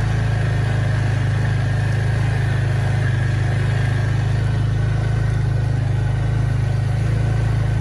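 Steady low engine hum that holds an even pitch and loudness throughout.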